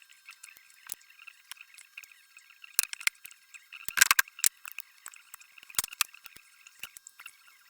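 Scattered sharp clicks and knocks of hand tools on metal, with a cluster of them about four seconds in, over a faint steady high chirping.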